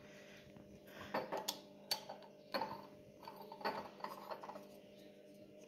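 Faint handling noises: a small glass diffuser bottle being turned in the hand and knocked lightly against a stone countertop, giving a scattering of light clicks and taps.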